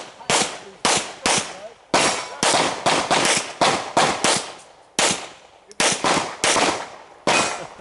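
Pistol shots fired in rapid succession, well over a dozen cracks at about two a second, each ringing briefly, with a short pause a little after five seconds. This is a timed practical-shooting course of fire.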